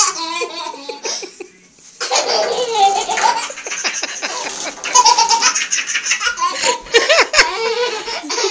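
A toddler laughing in repeated bouts of loud belly laughs and giggles, with short pauses between bouts.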